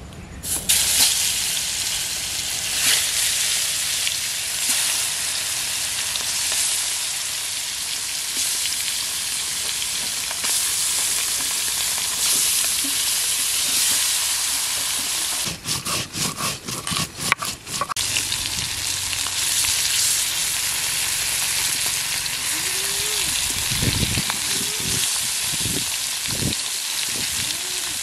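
Koi fish (climbing perch) coated in turmeric and chilli sizzling steadily as they fry in hot mustard oil in an iron kadai. The sizzle starts as the first fish go into the oil, and there is a short stretch of uneven crackling about two-thirds of the way in.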